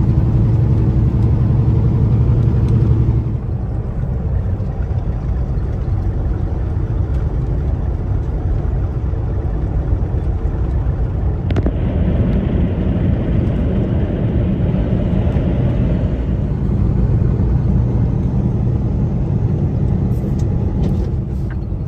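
Steady in-cab rumble of a Kenworth T680 semi-truck's diesel engine and road noise while driving at speed. The engine note is louder for the first three seconds, then drops a step, and there is a single click a little past the middle.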